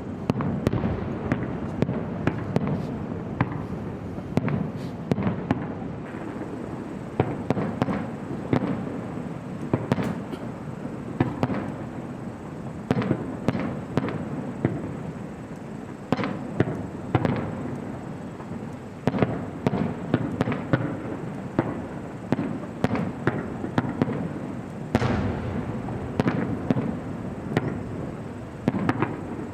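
An aerial fireworks display going off: many sharp bangs of bursting shells, several a second at times, each trailing off into echoing rumble over a continuous low crackle.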